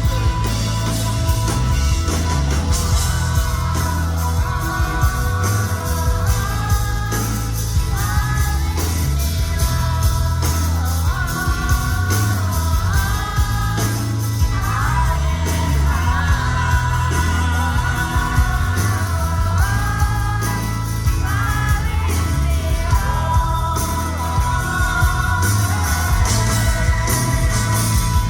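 Live rock band playing, with a male lead vocal singing over loud bass, drums and guitar.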